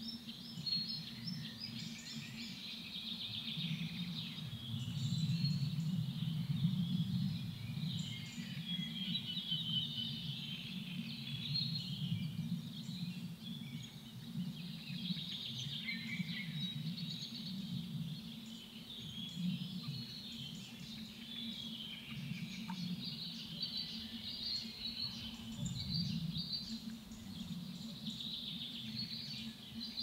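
Many birds calling and singing at once, a dense, continuous chatter of overlapping calls, over a low steady rumble.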